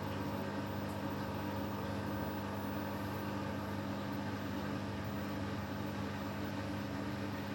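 Beko WTK104121W washing machine running with a steady motor hum during an intermediate spin of its Quick 60 programme. The drum is not getting up to spin speed: the spin is being cancelled.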